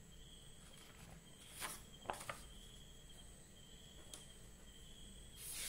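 Quiet room tone with a faint, steady high-pitched trill that comes and goes, and a few short scratchy strokes.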